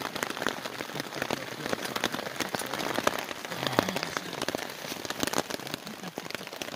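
Heavy rain falling steadily, with many close raindrops landing as sharp individual ticks.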